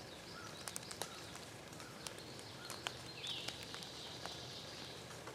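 Faint outdoor morning ambience with distant bird calls, including a high thin call a few seconds in, and a few sharp clicks.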